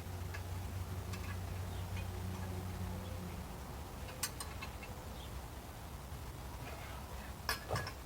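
A steady low hum with a few sharp clicks, one about four seconds in and a quick cluster near the end.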